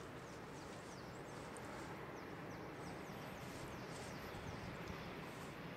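Faint, steady low rumble of an electric train hauled by three locomotives (ÖBB 1216 and 1016 Taurus and a 1293 Vectron) approaching round a curve. Birds chirp over it in many short, quick, falling notes.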